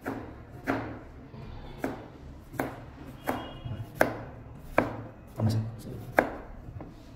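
Chef's knife slicing a cucumber into rounds on a plastic cutting board, the blade knocking on the board in an even rhythm of about nine strokes, roughly one every three-quarters of a second.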